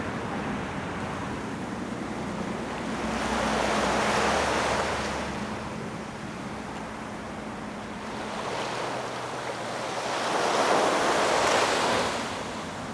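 Ocean waves washing onto the shore: two surges about seven seconds apart, each building up and fading away.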